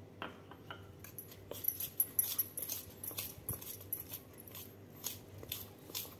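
Steel spoon stirring and scraping gram-flour batter in a stainless steel bowl: faint, irregular scrapes and light clinks of metal on metal.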